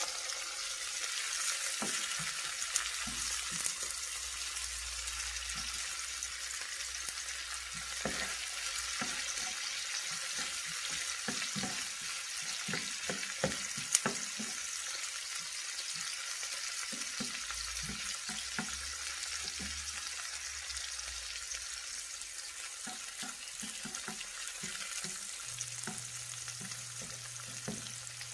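Sliced onions sizzling in hot cooking oil in a skillet, with a steady hiss. A spoon knocks and scrapes against the pan now and then, most often in the middle stretch.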